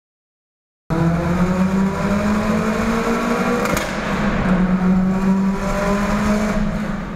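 Turbocharged Subaru engine pulling hard under boost, heard from inside the cabin in a tunnel. It starts about a second in and its pitch climbs as the car accelerates.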